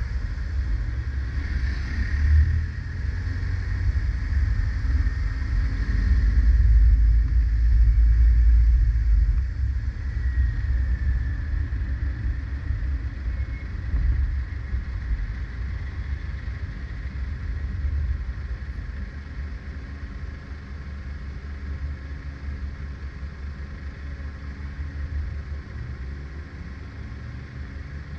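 Car driving in city traffic: a steady low rumble of road and wind noise. It is loudest a few seconds in, then tapers off as the car slows to a stop behind a van near the end.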